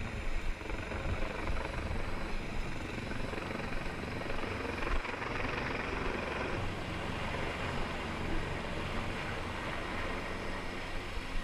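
Helicopter rotor and engine noise, a steady, continuous din.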